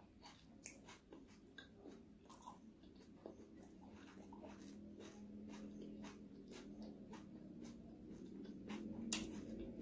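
Close mouth sounds of a person chewing eba (garri fufu) with peanut butter soup: scattered wet smacks and small clicks. A low steady hum rises beneath them from about four seconds in, and a sharper click comes near the end.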